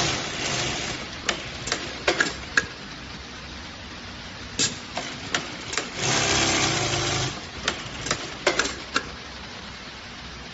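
Unicorn H6500 sewing machine running in two short bursts, about a second at the start and about a second and a half some six seconds in. Sharp clicks and knocks come in between the runs.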